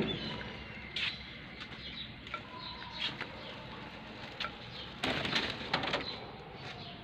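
Soft, low calls of caged birds, with a few short clicks and knocks and a louder scuffling noise about five seconds in.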